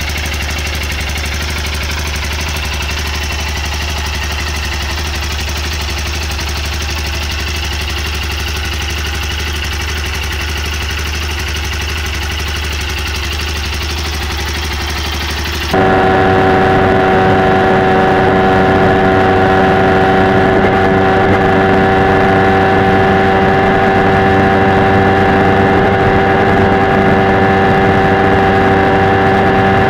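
Yamaha MT-03's water-cooled four-stroke single-cylinder engine idling steadily. About 16 seconds in, a sudden cut to a louder motorcycle engine held at steady revs while cruising on a highway.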